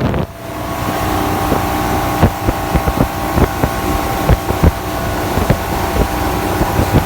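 Motorboat engine running steadily while the boat is under way, with irregular sharp thumps and wind on the microphone.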